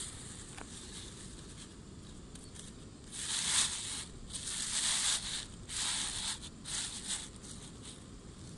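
Thin plastic bag crinkling in several short bursts as it is opened and handled, starting about three seconds in and dying away near the end.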